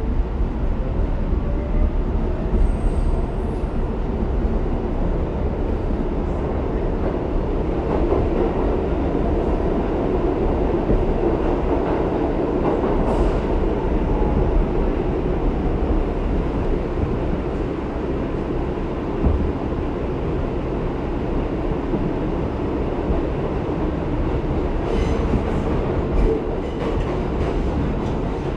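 Inside an R62A subway car running along the track: a steady rumble of wheels and car body, with a faint rising motor whine in the first few seconds as the train picks up speed. There are a few light clicks of the wheels over rail joints near the end.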